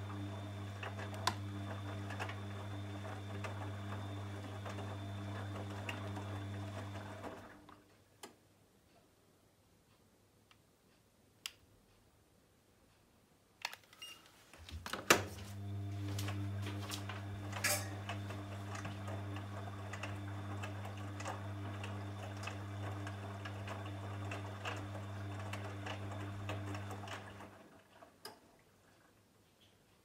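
Bosch VarioPerfect WAQ283S0 washing machine in its wash phase: the drum motor hums steadily as the drum tumbles the wet laundry for about seven seconds, stops for about seven seconds with a few scattered clicks, then runs again for about twelve seconds before stopping near the end.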